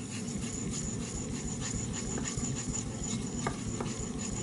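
3V steel knife blade being stroked back and forth over a wet Chosera 3000 water stone loaded with Botan nagura slurry: a steady, repeated rubbing and grinding of steel on abrasive.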